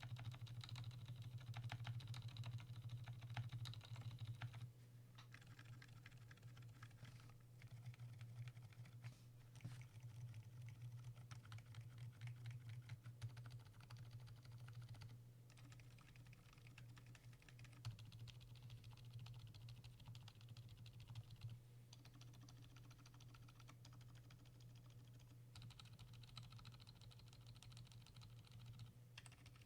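Typing on a Keychron K6 mechanical keyboard with lubed Gazzew Boba U4 silent tactile switches: a quiet, steady run of keystrokes that gets a little softer about five seconds in. A steady low hum runs underneath.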